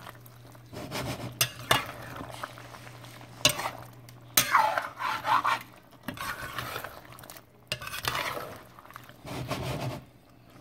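Metal spoon stirring chunky curry chicken, potatoes and carrots in a metal pot, scraping the bottom and clinking against the sides in irregular strokes.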